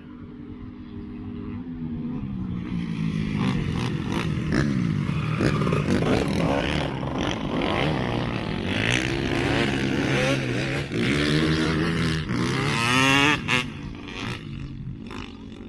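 Dirt bike engines revving as riders cross the sand, the pitch climbing and dropping again and again with the throttle. The sound builds over the first few seconds, is loudest as a bike passes close about 13 seconds in, then fades.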